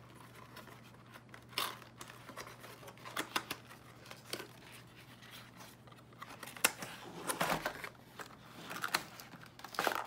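Cardboard box being opened by hand and a plastic blister tray slid out of its sleeve: irregular rustles, scrapes and small clicks of card and plastic, busier and louder in the second half.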